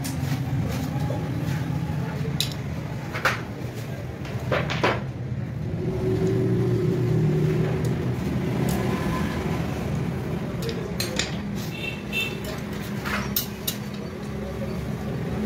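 Scattered light metal clinks and knocks as the cast cylinder barrel of a 70cc motorcycle engine is handled and slid down its studs over the piston. A steady low hum runs underneath.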